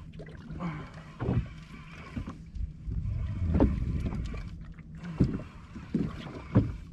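Fishing reel being cranked as a hooked fish is reeled up, with a steady low hum underneath and a few sharp knocks.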